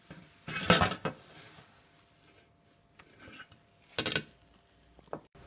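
Knocks and scrapes of a metal baking tray as a raw flammkuchen is slid onto it: a longer scrape about half a second in, and a sharp knock about four seconds in.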